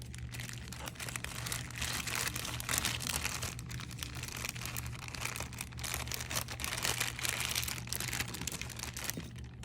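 Small plastic bags crinkling continuously as they are handled, with irregular crackles throughout and a steady low hum underneath.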